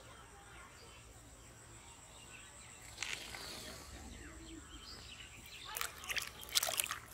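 A steady high insect drone in the background, with a brief rustle about three seconds in. Near the end comes a quick cluster of sharp splashes and slaps as live fish thrash in a plastic basin of water.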